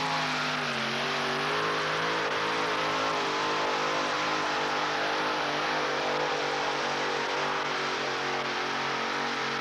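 A modified pulling tractor's engines run flat out under load as they drag a weight-transfer pulling sled. The sound is a loud, steady, high-pitched drone that holds nearly one pitch, with a slight dip about a second in.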